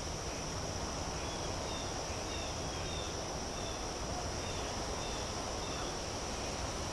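Outdoor birds ambience: a steady high insect drone, like crickets, runs under a scatter of short, high bird chirps over a low background rumble.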